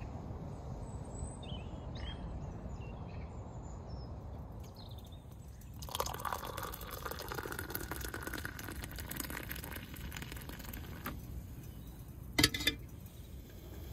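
Hot water poured steadily into a mug for about five seconds, starting about six seconds in, the mug filling and frothing up around a spoon. A short, sharp double knock comes near the end, and faint bird chirps are heard in the first few seconds.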